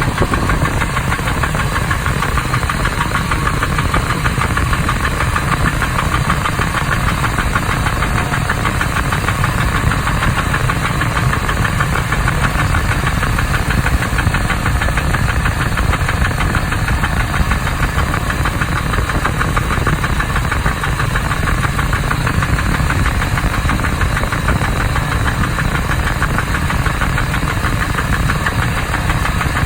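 2001 Ford Expedition's V8 engine running steadily with a rapid, continuous knocking noise.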